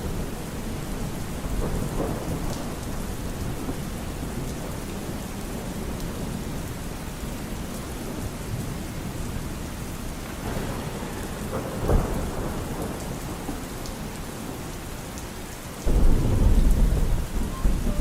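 Steady rain with thunder: a short clap about twelve seconds in, then a loud, low rumble that starts suddenly near the end.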